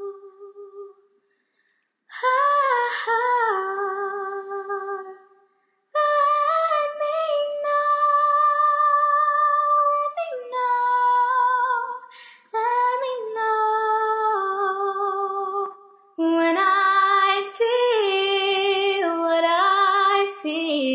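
A young woman singing solo and unaccompanied: long held notes and melodic runs, broken by short pauses about one and a half and five and a half seconds in.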